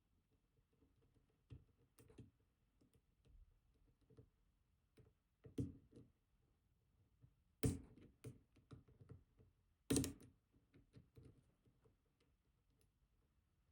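Faint, sparse metallic clicks and ticks of lock picks working the pins inside an ASSA Twin Combi high-security lock cylinder, with a few louder clicks spread through.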